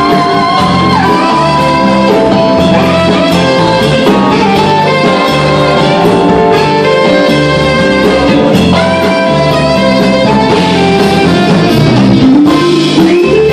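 A live band playing a song with electric and acoustic guitars, bass guitar and drums, heard from far back in the venue.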